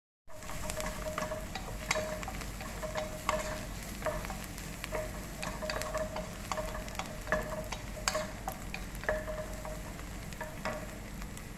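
A wooden spatula stirs chopped onion and garlic frying in a coated pot, with repeated short scrapes and knocks against the pot over a low sizzle.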